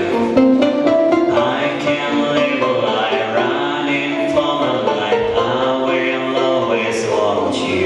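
Instrumental music from a performance soundtrack, with pitched notes moving up and down and a few percussive hits.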